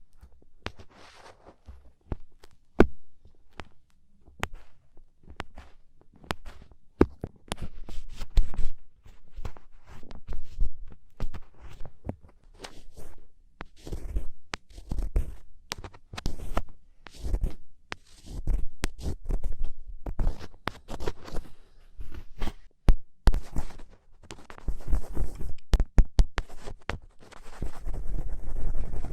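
Ear pick scraping and picking hardened black earwax inside an ear canal: irregular crackling clicks and scratching, with dull low thumps.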